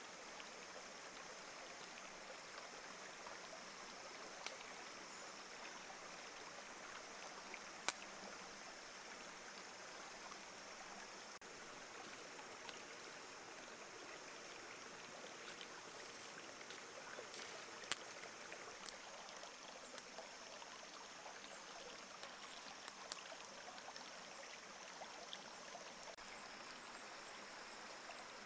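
Faint steady rush of running water from a nearby stream, with a scattering of sharp crackles from the wood fire under the squid skewers, the loudest about eight and eighteen seconds in.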